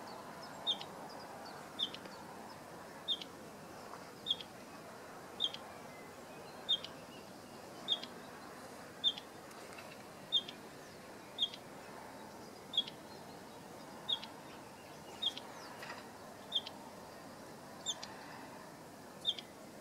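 Male bluethroat giving a short, sharp call over and over at an even pace, about one call every second and a quarter.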